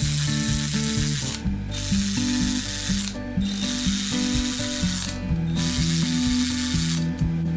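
Cordless electric ratchet running flywheel bolts down into an LS engine's crankshaft, in four runs of about a second and a half each with short pauses between.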